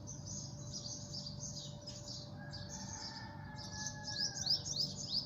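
Small birds chirping continuously in the background, with a quick run of short falling chirps near the end, over a faint steady hum.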